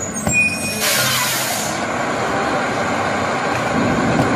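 Garbage truck engine running steadily, with a short burst of hissing air about a second in.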